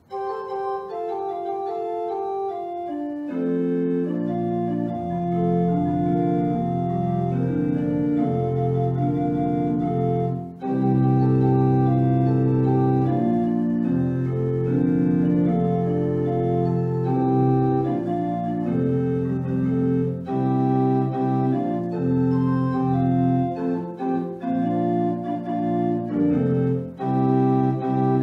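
Church organ playing the postlude after the benediction: sustained, held chords, with the bass notes coming in a few seconds in.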